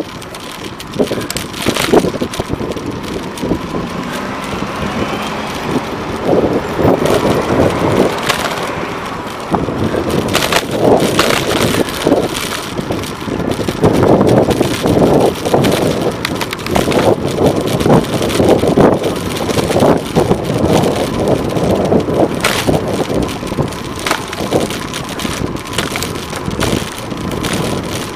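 A bicycle rolling along a paved road, with road and wind noise and a steady stream of rattles and knocks from the bike and its camera mount over the surface. Cars go by alongside.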